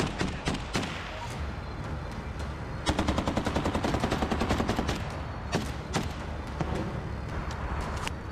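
Close-range rifle fire: a few single shots in the first second, then a long automatic burst of about two seconds, roughly ten shots a second, starting about three seconds in, followed by scattered single shots.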